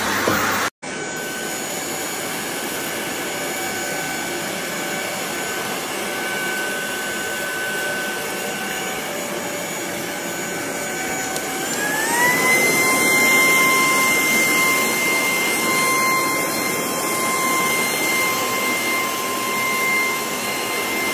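Cordless wet-dry floor cleaner with a twin-roller head running over a wet marble floor, drying it: a steady vacuum whine that rises to a higher pitch about halfway through and holds there. The sound drops out for an instant near the start.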